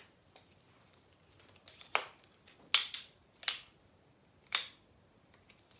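Folding white cane being folded up, its jointed sections clacking against each other in a series of sharp clicks, about four loud ones roughly a second apart.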